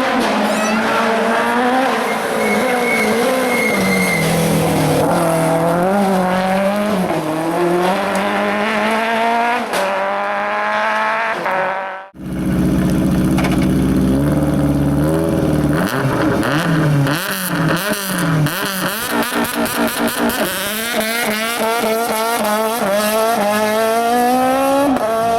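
Citroën AX Kit Car rally engine revving hard, its pitch climbing through each gear and falling back at the shifts. About halfway through the sound cuts out briefly, then another run follows with choppy on-off bursts of throttle before the revs climb steadily again. A little tyre squeal sits under the engine.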